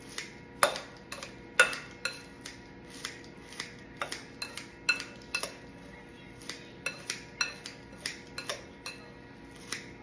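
Knife chopping romaine lettuce on a cutting board: a run of sharp, uneven knocks, about two or three a second.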